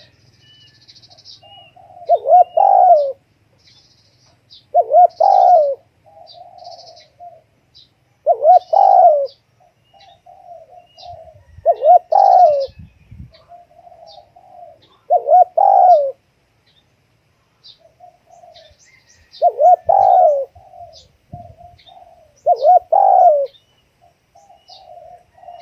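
Spotted dove cooing: a loud coo phrase about every three seconds, with softer murmuring coos between them. Faint high chirps come from other small birds.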